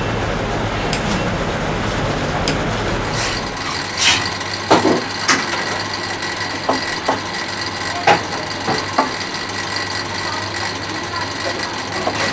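A steady hum for the first few seconds. Then, from about four seconds in, irregular sharp knocks and taps of wooden pieces being handled and fitted together as a small wooden box frame is assembled on a workbench.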